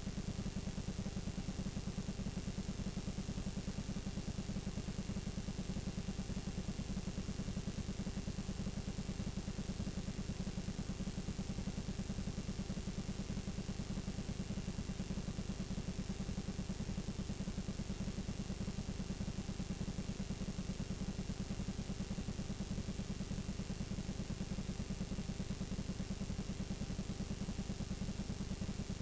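Steady low buzz and hiss from a blank stretch of videotape playing back, with a thin high whine above it.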